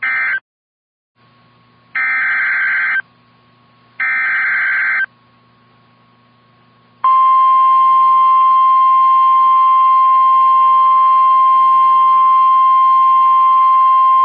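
NOAA Weather Radio alert signal: bursts of SAME digital header data (a clipped one, then two full bursts about a second long, two seconds apart), followed about seven seconds in by the steady single-pitch Warning Alarm Tone. Together they announce that a warning is about to be read.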